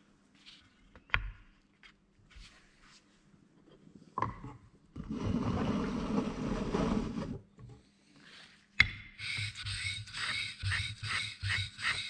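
Two waterstones rubbed against each other in even back-and-forth strokes, about two or three a second, to flatten the face of the sharpening stone. Before that come a few sharp knocks as the stones are set down, and a couple of seconds of water sloshing in the tub as a stone is wetted, the loudest part.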